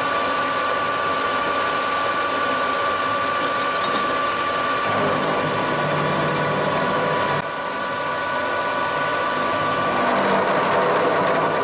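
Hafco HM 54GV milling machine running, its end mill cutting across an aluminium block, a steady whine over the hiss of the cut. The sound steps down slightly about seven seconds in.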